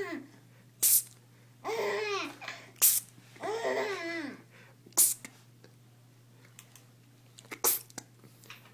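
Sharp mouth pops made as a sound effect, one every two seconds or so, four in all, the first two each followed by a baby's short, high-pitched squealing laugh; the last two pops get no laugh.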